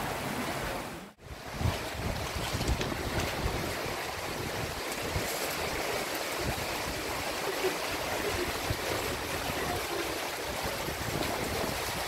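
Shallow spring-fed stream running over gravel, with water trickling down the rock wall of the canyon, and wind buffeting the microphone. The sound drops out briefly about a second in.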